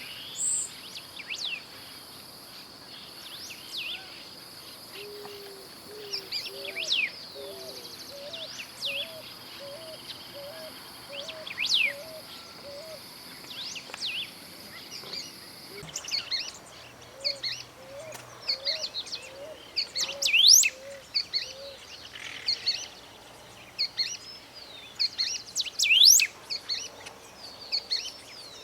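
Golden-billed saltator singing: short, sharp whistled notes with quick up and down pitch sweeps, coming in irregular bursts and loudest in the second half. A steady high whine runs through the first half, and runs of low, evenly repeated notes come in three times.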